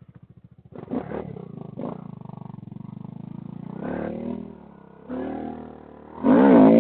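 Small single-cylinder motorcycle engine idling with a steady pulse, blipped a few times. Loud electric-guitar music cuts in near the end.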